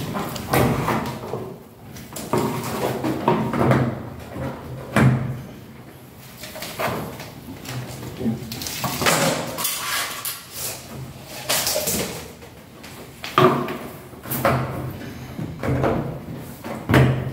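Flexible LED strip being pressed and worked into an aluminium profile channel by hand: irregular rubbing, scraping and light knocks of the strip against the metal.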